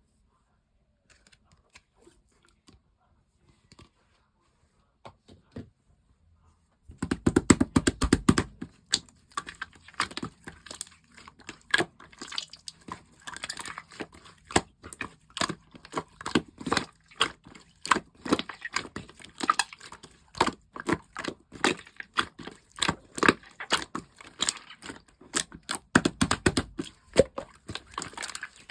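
Slime being squished and kneaded by hand: dense, irregular wet crackling and popping clicks. It starts about seven seconds in, after a near-quiet stretch with a few faint taps.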